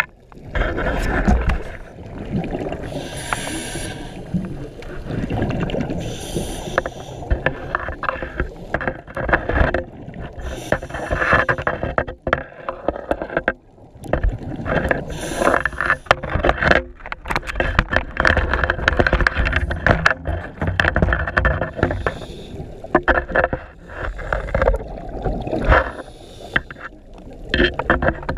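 Underwater scuba sound: a diver's regulator exhaust sending out bursts of bubbles every few seconds, over a constant rumble of water movement and many small clicks.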